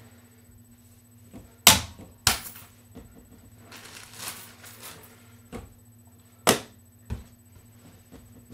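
Hard objects knocking and clattering: two loud knocks close together about two seconds in, then another pair about six and a half seconds in, with softer rattling between and a steady low hum underneath.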